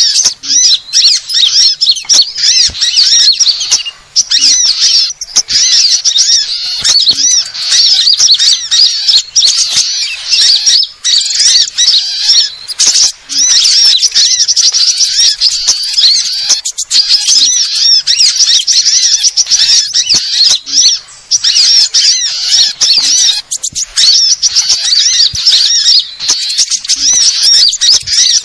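Bird-trapping lure recording of many small songbirds calling at once: a dense, unbroken chatter of rapid high chirps and short trills, with only a few brief dips.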